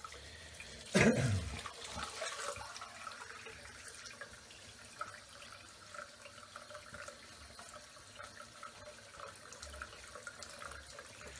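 Bathroom tap running steadily into the sink as the face is rinsed with cold water, with one loud splash about a second in.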